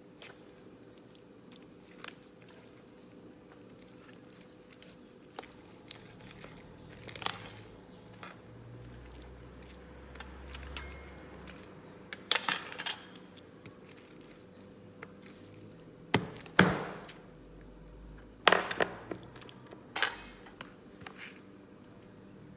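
Kitchen utensils and dishes clinking and knocking during cooking, with scattered light taps and a few louder clatters, over a faint steady hum.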